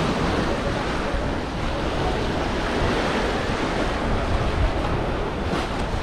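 Small sea waves breaking and washing up a pebble beach, a steady surf noise, with wind rumbling on the microphone.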